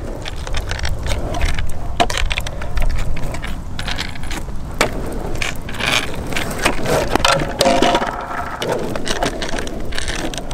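Cheap longboard rolling on asphalt: a steady rumble of the wheels, with rattling and sharp clicks from the trucks and deck as the rider moves on the board.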